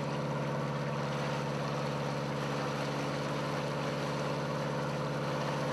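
A passenger boat's engine running at a steady cruising speed: an even, unchanging drone with a faint hiss of water and wind underneath.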